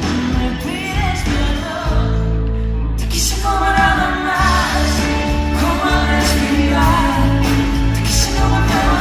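Pop-rock song with a woman's lead voice singing over a full band. The singing grows stronger about three and a half seconds in, and the cymbals open up just before.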